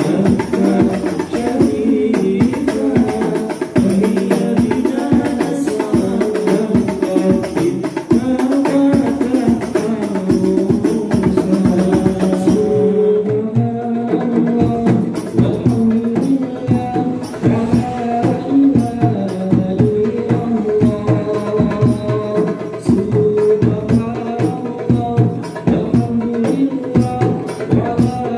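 Hadroh ensemble: men's voices singing an Islamic devotional song (sholawat) into microphones over interlocking rebana frame drums and a large bass drum. The bright, hissy top of the sound drops away about halfway through.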